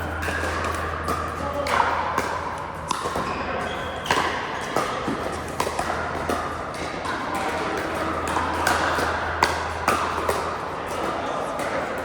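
Pickleball paddles striking the hollow plastic ball: a dozen or so sharp pops at irregular intervals, with ball bounces and background voices, over a steady low hum.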